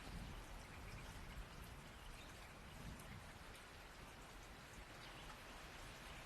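Soft steady rain with scattered drops pattering, faint, as a thunder rumble fades away at the start.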